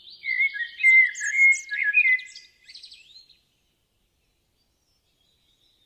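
A songbird singing a rapid, varied song of chirps, trills and short whistles, which stops about three seconds in.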